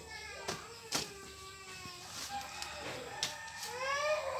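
A small child crying and wailing, its voice rising and falling in pitch and growing stronger near the end, with a few sharp knocks about half a second, one second and three seconds in.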